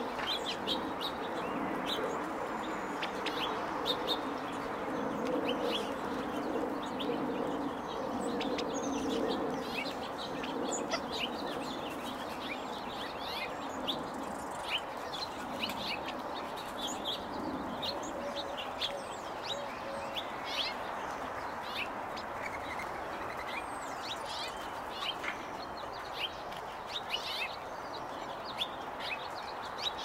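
Small birds chirping in many short, high notes, mixed with soft clucking from a family of California quail feeding on seed, over a steady background hiss.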